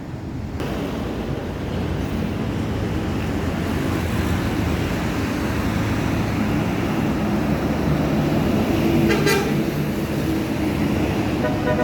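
Bus engine and road traffic running steadily, with one short horn toot about nine seconds in. Right at the end a multi-tone telolet horn begins to sound.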